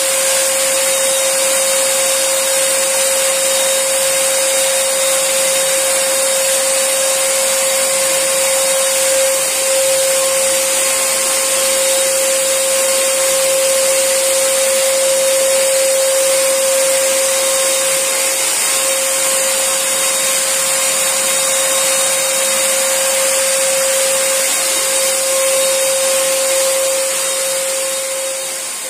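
Nankai portable electric paint sprayer's turbine blower running steadily, with a high whine and the hiss of air and paint from the spray gun. It begins to wind down at the very end.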